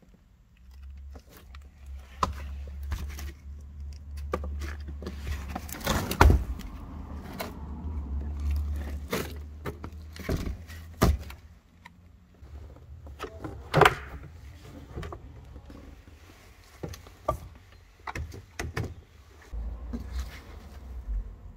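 A hand tool scraping and knocking at flaking rust and old underseal on a Volkswagen Golf Mk2's rusted floor pan: irregular scrapes, clicks and sharp metal knocks, loudest about six and fourteen seconds in, over a low rumble.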